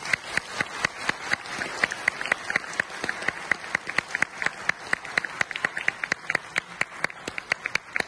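Audience applauding, with one person's claps close by standing out sharply, about three a second.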